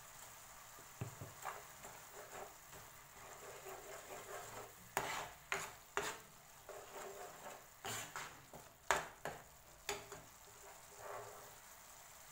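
Stainless steel spoon stirring thick tomato sauce in a pan, scraping and knocking against the pan in a run of irregular strokes, the sharpest in the middle and latter part. A faint sizzle of the simmering sauce runs underneath.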